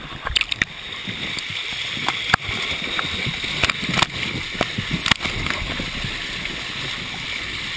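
Steady rush of churning water, with scattered small splashes and knocks.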